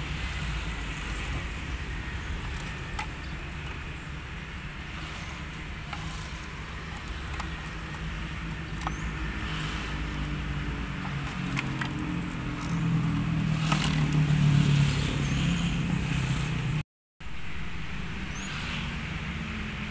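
Low steady engine-like rumble that swells louder about two-thirds through and then breaks off suddenly, with a few light clicks of plastic trim and wiring being handled.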